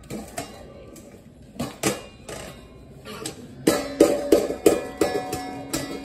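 A baby banging a plastic container against a stainless steel mixing bowl: a few scattered knocks at first, then, a little past halfway, a quick run of loud clattering knocks, about three a second, with the steel bowl ringing between them.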